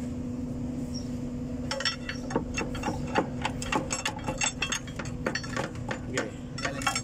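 Irregular metallic clinks and knocks, starting about two seconds in, as a Hino 500 truck's clutch pressure plate and disc are wiggled loose from the flywheel by hand. A steady low hum runs underneath.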